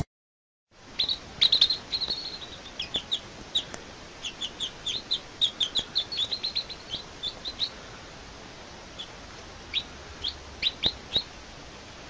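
Young chicks peeping: quick runs of short, high cheeps that thin out to a few scattered ones near the end, over a steady hiss.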